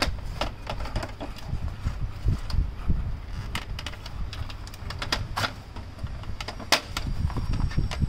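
Irregular clicks and light plastic knocks from the HP LaserJet Pro MFP M125/M126 control-panel housing and scanner frame being handled and worked loose, with a sharper click about three and a half, five and a half and nearly seven seconds in. A steady low rumble sits underneath.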